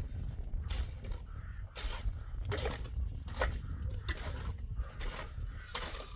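Repeated scraping strokes, roughly one a second, over a low rumble.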